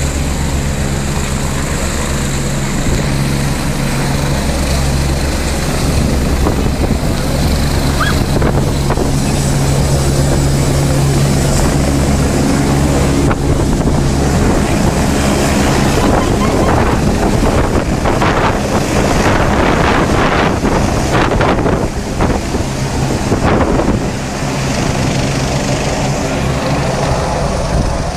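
Helicopter taking off, its rotor and turbine engine running steadily at lift-off power as it rises and climbs away. For several seconds in the middle, gusts of wind blow hard on the microphone.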